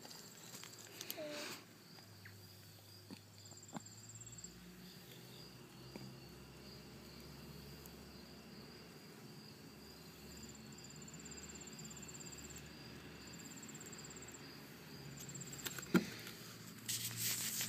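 Faint insect trills, high-pitched and coming in several short spells, over quiet background hiss, with a few soft clicks. Near the end a sharp click and then rubbing noise set in.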